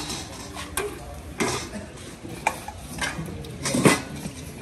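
Metal pots, dishes and serving utensils clanking and clinking as food is dished out: a handful of separate sharp knocks, the loudest nearly four seconds in.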